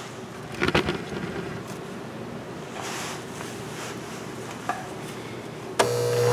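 Soft handling noises as fabric is lined up against a serger's presser foot, then about a second before the end the serger's motor starts and runs with a steady hum as it begins to stitch and trim the seam edge.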